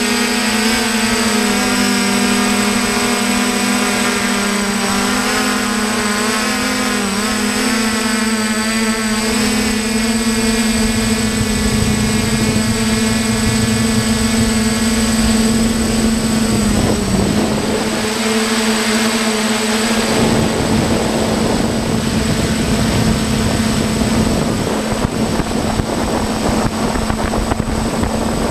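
Hexacopter drone's motors and propellers running steadily: a loud hum with overtones that waver slightly in pitch. About twenty seconds in, a low rushing noise rises beneath it.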